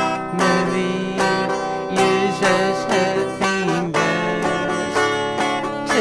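Instrumental passage of a late-1960s folk song played from vinyl: an acoustic plucked-string instrument picking notes about twice a second, with no singing.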